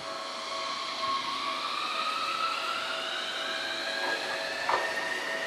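Tokyu 300 series tram pulling away, its electric traction motors giving a whine that rises steadily in pitch as it accelerates, with a couple of clacks near the end.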